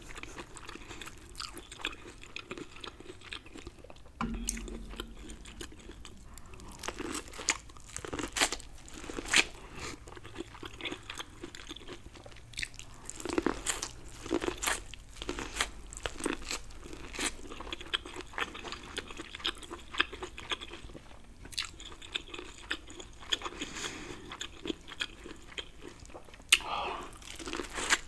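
Biting and chewing a sauce-coated corn on the cob: repeated, irregular crunches of teeth pulling kernels off the cob, with wet chewing in between.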